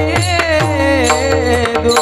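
Indian devotional song: a singer holds a long, sliding melodic line over steady sustained accompanying notes and regular hand-drum strokes with deep bass thuds.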